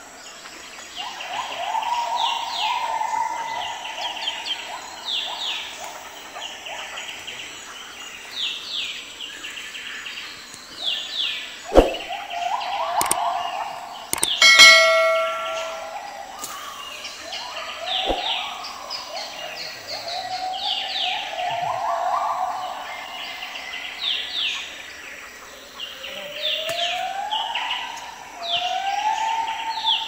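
Forest chorus of repeated chirps and whistles from wild birds, some calls rising in slow siren-like glides and then holding steady. About halfway through come two sharp knocks and a loud, bright higher note.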